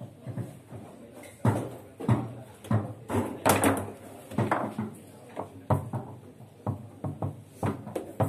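Table football (foosball) in play: an irregular run of hard knocks and clacks as the ball is struck by the figures and the rods are shoved and spun, the loudest cluster about three and a half seconds in.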